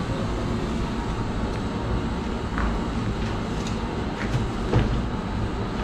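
Steady low rumble with a few dull knocks as a heavy truck tyre is tipped and handled on concrete, the loudest knock near the end.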